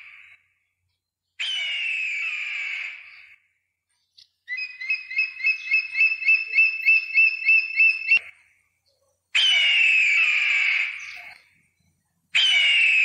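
Bird of prey calling. A long, harsh scream that falls in pitch comes about a second in and again near the middle of the second half, and another starts near the end. Between them, for about four seconds, there is a bald eagle's fast chattering series of high piping notes, about four a second.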